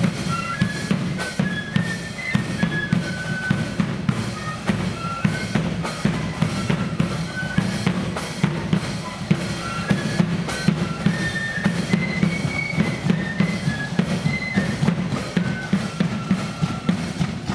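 Marching flute band playing a tune: massed flutes carry a high melody over a steady beat of snare and bass drums.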